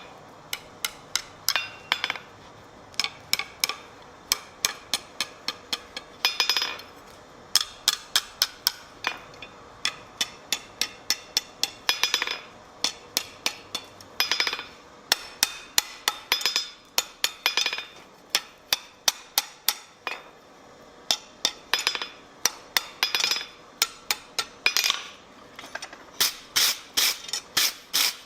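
Blacksmith's hammer striking metal on an anvil in runs of quick blows, about four a second, with short pauses between runs; each blow rings high and metallic. The blows come faster and louder near the end.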